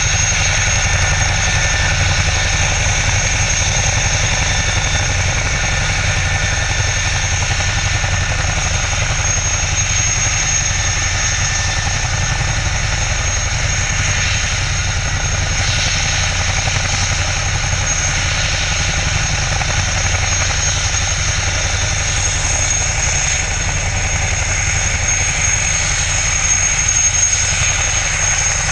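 Boeing CH-47 Chinook tandem-rotor helicopter running on the ground with its rotors turning: a steady rotor beat under a high, steady turbine whine.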